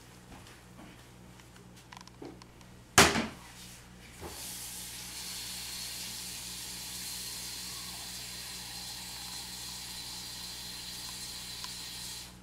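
A sharp knock about three seconds in, then a kitchen tap running in a steady hiss for about eight seconds as hot water is drawn at the sink, shutting off near the end.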